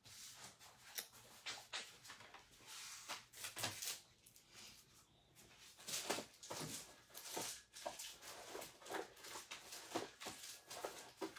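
Paper and small craft tools being handled on a cutting mat: quiet cardstock rustling with scattered light taps and clicks, irregular throughout.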